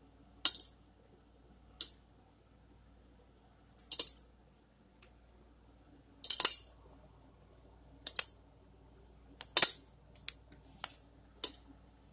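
Small stones clinking as they drop into a glass jar a few at a time: about ten sharp clinks at irregular intervals, some in quick clusters.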